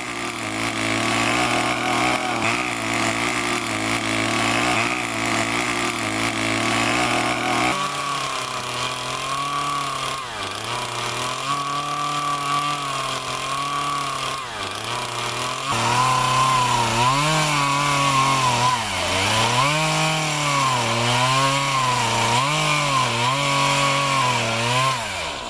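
Chainsaw running at speed, steady at first. From about eight seconds in, its pitch starts to sag and recover, and near the end it dips and climbs back about once a second as the chain bites into wood.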